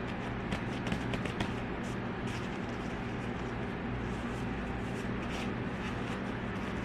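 A small motor running with a steady hum, with scattered light clicks and taps over it.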